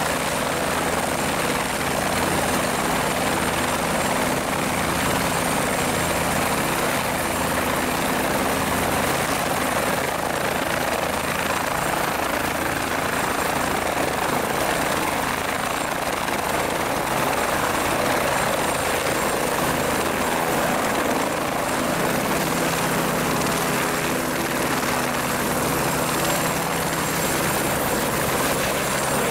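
Helicopter lifting off and climbing away overhead, its rotor and turbine engine running loud and steady.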